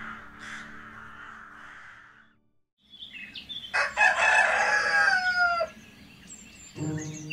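A rooster crowing once, a single long cock-a-doodle-doo that falls in pitch at its end, about four seconds in, after a brief silence.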